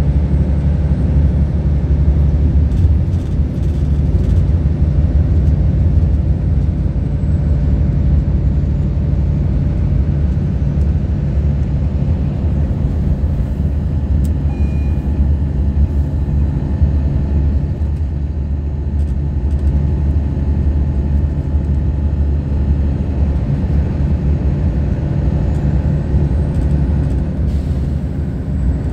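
Inside the cabin of a 2010 Volvo 8500 B12BLE bus at steady motorway speed: a low, steady engine drone from the rear-mounted Volvo D12 straight-six diesel, mixed with tyre and road noise. It stays at an even level throughout, with no gear changes or braking.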